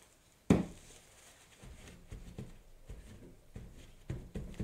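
Hand handling of art materials on a tabletop: one sharp knock about half a second in, then soft, irregular rubbing and scuffing as a crumpled tissue is pressed and dabbed onto the painting.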